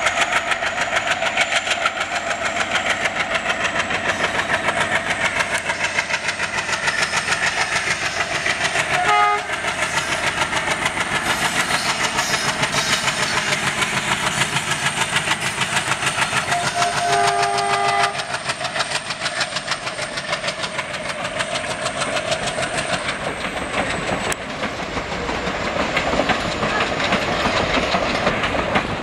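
WDG-3A diesel locomotive's 16-cylinder ALCO engine chugging as it hauls a passenger train past, with a rapid clickety-clack of wheels on the track. Its horn sounds twice: a short toot about nine seconds in and a longer blast of about a second some seventeen seconds in.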